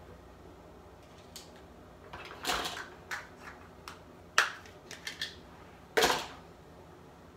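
Makeup containers and tools handled and set down on a counter: a string of irregular clicks and clacks, the sharpest about four and a half and six seconds in.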